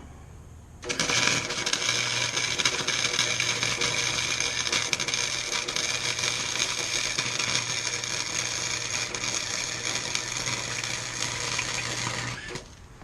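Harbor Freight electric welder laying a weld bead on a steel tow bar, a steady crackling sizzle with a low electrical hum under it. The arc strikes abruptly about a second in and cuts off suddenly near the end, about eleven seconds later.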